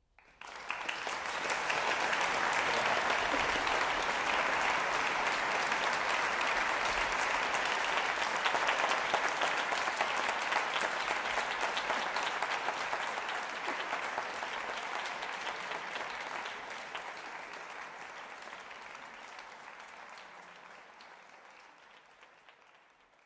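Audience applauding, breaking out suddenly about half a second in after near silence, then dying away gradually over the last several seconds.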